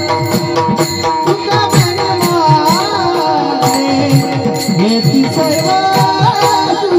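Indian folk-style music played by an instrumental group: fast drum strokes that bend in pitch keep a steady rhythm under a wavering melody line and held tones.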